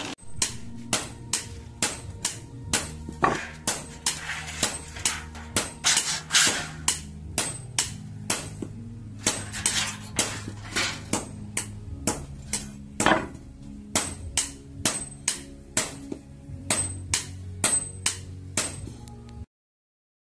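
Blacksmith's hammer forging a steel blade on an anvil, about two ringing blows a second, over low background music; it cuts off suddenly near the end.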